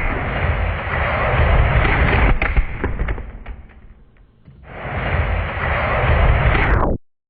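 Die-cast Hot Wheels cars rolling on a plastic track, a loud steady rumble. About two and a half seconds in comes a quick run of clicks and clatters, then the rumble fades out. It returns about five seconds in and cuts off abruptly near the end.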